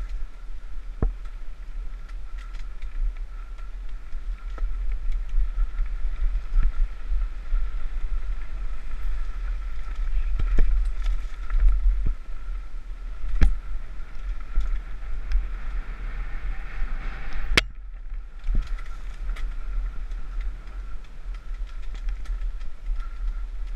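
Mountain bike descending a rough trail with a camera on the rider: a steady low wind rumble, many scattered rattles and knocks from the bike over bumps, and a faint steady high buzz. About 17 seconds in there is one sharp knock, after which the sound drops away for under a second.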